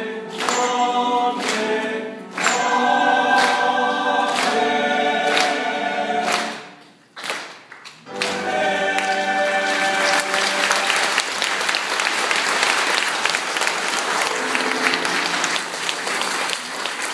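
Choir singing a song over a sharp beat about once a second. It breaks off briefly about seven seconds in, then sings a last held chord, and the congregation starts applauding about ten seconds in.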